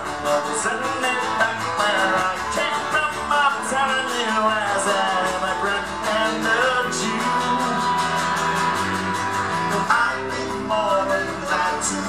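Live acoustic band music: guitar strummed in a steady rhythm with a man singing over it.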